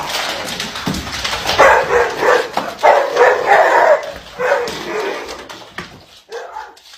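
A dog barking and yipping in a quick run of short barks, trailing off near the end.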